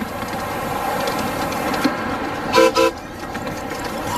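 Two short toots on a miniature ride-on locomotive's whistle about two and a half seconds in, over the steady running noise of the train.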